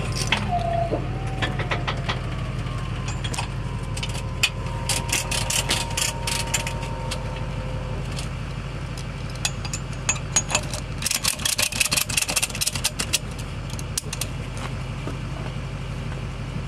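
Vehicle engine idling steadily, with bursts of metal clanking and rattling about four to seven seconds in and again from eleven to thirteen seconds in, as a car is hooked up for towing.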